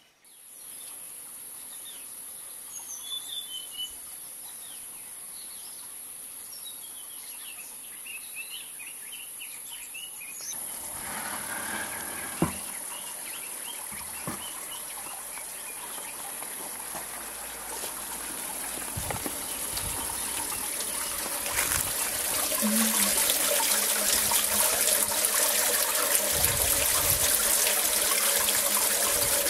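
Birds chirping over a steady high whine, then a few knocks as concrete slab covers are lifted off a water tank. Near the end, water runs from a pipe onto pebbles inside the tank, a louder steady trickling.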